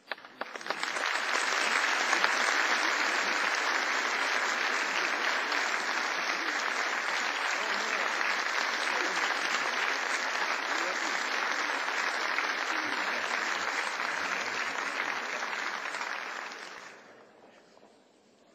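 Audience applauding: dense, steady clapping that starts suddenly, holds for about sixteen seconds, then dies away near the end.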